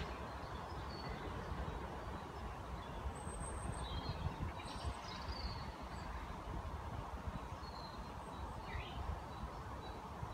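Low rumble of a Class 456 electric multiple unit fading slowly as it runs away into the distance. Short bird chirps come and go over it.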